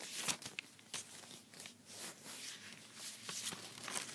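Paper rustling and crinkling, a scatter of short crackles, as a Lego instruction manual is handled and leafed through.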